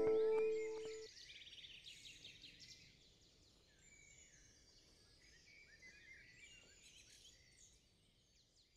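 Closing background music ending on a held note that fades out about a second in, followed by faint, scattered bird chirps that die away near the end.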